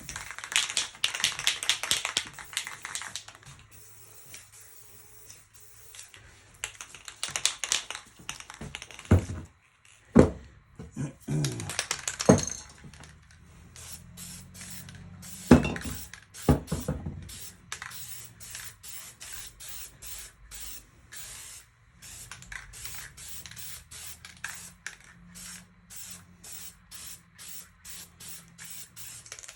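Aerosol spray paint can hissing in several longer sprays, then many short quick spurts in a steady rhythm. A few sharp knocks fall around the middle, and a faint low hum runs underneath.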